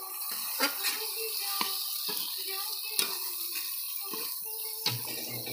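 Chicken curry sizzling in a metal kadai while a spatula turns it, with a steady hiss and a few sharp scrapes and knocks of the spatula against the pan. Faint short pitched notes of background music or a voice sit underneath, and a low steady hum starts near the end.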